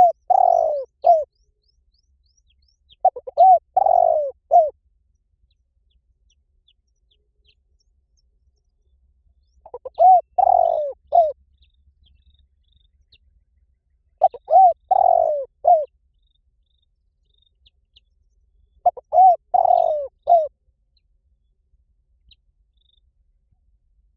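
Spotted dove cooing: five phrases of several low coos each, separated by gaps of a few seconds.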